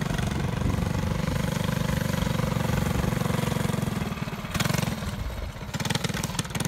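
Small kart engine running at a steady speed as the kart drives, with a brief rush of noise about four and a half seconds in.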